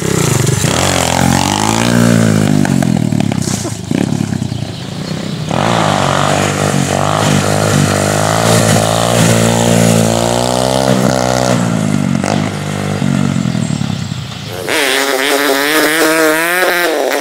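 Pit bike's small single-cylinder engine revving hard and easing off during wheelies, its pitch rising under throttle and falling away over several passes. Near the end the bike is close and the engine's pitch wavers quickly up and down.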